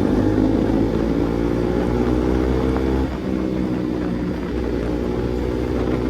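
KTM RC 200's single-cylinder engine running steadily through an aftermarket exhaust; the note drops slightly about three seconds in.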